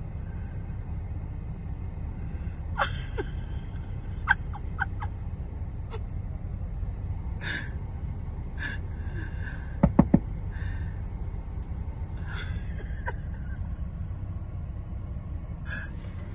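Steady low rumble of a car's engine and cabin heard from inside the closed car. Faint rustles sound over it, and two quick knocks come about ten seconds in.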